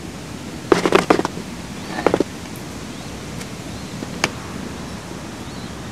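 Glass marbles clicking against each other on a wooden board: a quick run of clicks about a second in, a few more around two seconds, and a single click after four seconds, over a steady hiss.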